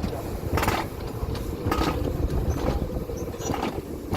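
Coaster cart rolling down its track: a steady rumble of the wheels with a faint hum and several irregular clacks over rail joints.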